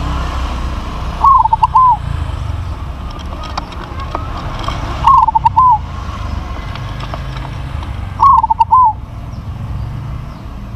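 Zebra dove (perkutut) cooing: three short phrases, each a quick run of notes ending in a held one, about three to four seconds apart, over a low steady rumble.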